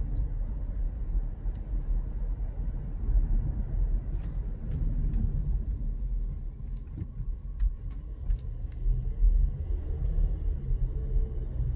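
Volkswagen T-Cross Highline heard from inside the cabin while driving slowly: a steady low rumble of road and engine noise, with a few faint ticks in the middle.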